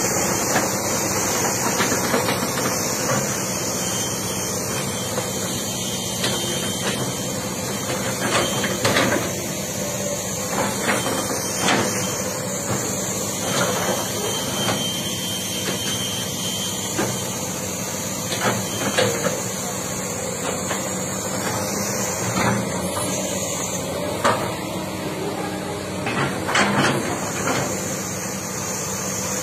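Komatsu crawler excavator's diesel engine running steadily as it digs, with scattered sharp metallic clanks and knocks from the bucket and arm.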